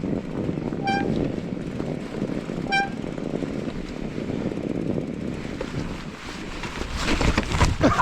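Mountain bike being ridden through snow with steady wind rumble on the microphone. Two short high beeps come about a second apart near the start, and a burst of rattling knocks near the end.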